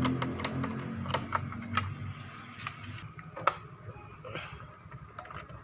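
Irregular sharp clicks and taps of hand tools and plastic body parts being handled while the headlight cowl of a motorcycle is taken off, with a brief scrape about four and a half seconds in.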